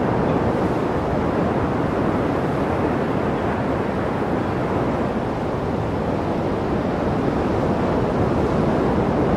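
Steady rushing wind noise from air streaming over the microphone of a camera carried aloft by an unmanned aircraft in flight, even and unbroken throughout.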